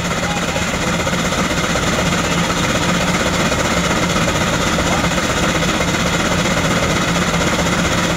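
Antique steam traction engine running steadily while driving a large generator through a long flat belt: a fast, even mechanical rhythm over a steady low hum.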